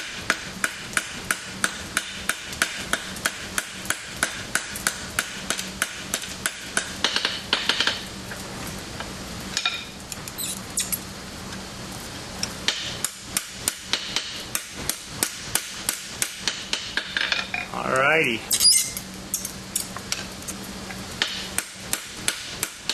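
Hammer blows on a hot iron rivet at the anvil, at about three a second with a short pause in the middle: the rivet head is being peened down with the round side of the hammer to join the two halves of a pair of blacksmith's tongs. A brief rising squeak about three-quarters of the way through.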